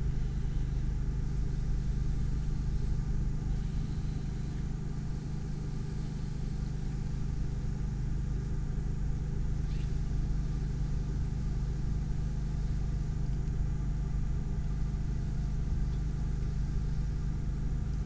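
Steady low rumble with a constant low hum.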